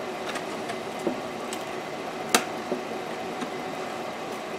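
Thin vacuum-formed plastic sheet crinkling and clicking in the hands as it is flexed around the 3D-printed buck stuck inside it, with one sharper click about halfway through, over a steady background hum.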